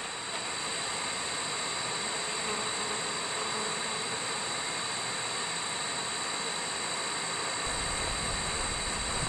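Steady high-pitched insect chorus, an even buzzing drone, with a low rumble joining near the end.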